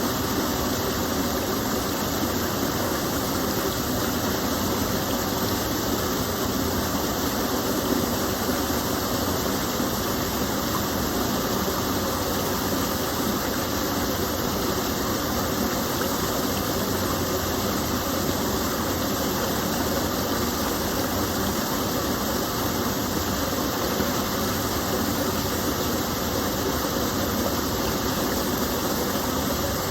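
Small waterfall from a gentle stream, water falling and rushing in a steady, unbroken wash.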